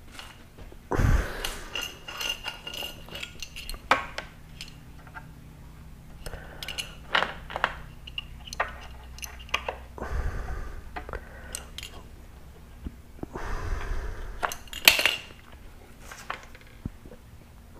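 Hands working adhesive tape onto a solar oven tube: irregular clinks and taps of a small metal tool against the tube, with crinkling and rustling of the tape's backing paper. One sharp clink near the end is the loudest.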